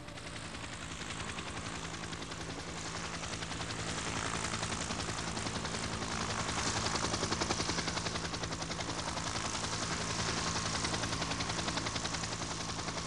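Helicopter in flight: a fast, even beat of rotor blades over a steady low hum, growing louder over the first few seconds.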